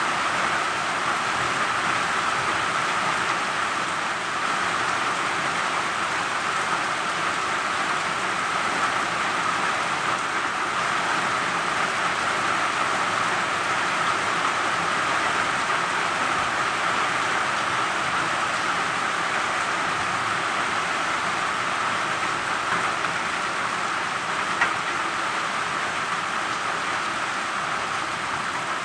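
Steady rain falling, an even hiss that does not let up, with a single small tick late on.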